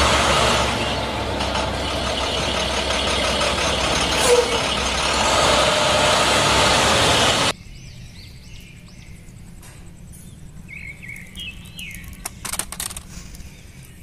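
A real school bus's engine running as it drives along a street, with loud road noise. It cuts off suddenly about halfway through. After that come quiet outdoor sounds: birds chirping and a few light clicks of a plastic toy being handled.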